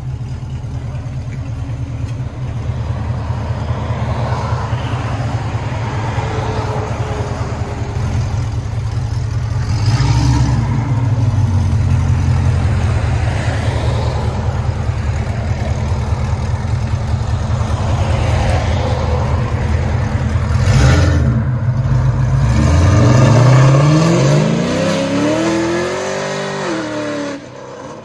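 2008 Chevrolet Corvette V8 with long-tube headers, high-flow cats, an X-pipe and turndown exhaust, rumbling at low revs with a couple of brief swells. Near the end it accelerates hard, the engine note climbing steeply, then falling away.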